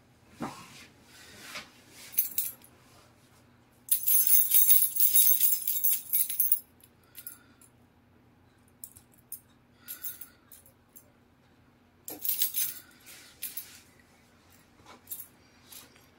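Keychain hanging from a lanyard jingling and clinking as a cat bats at it with its paw. It comes in rattling bursts, the longest lasting a couple of seconds about four seconds in and another about twelve seconds in, with single clinks between.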